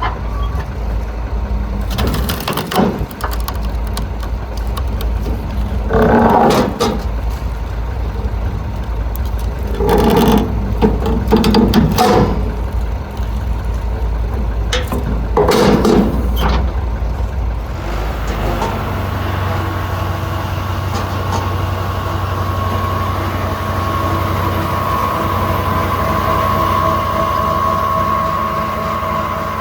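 Sawmill machinery running: a steady low drone broken by several short, louder surges, then about two-thirds of the way through the drone changes and a steady high whine of several tones sets in.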